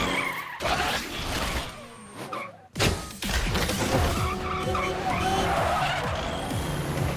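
Cartoon sound effects over background music: a busy, vehicle-like mechanical noise with skidding screeches, cut off briefly about three seconds in and then starting up again.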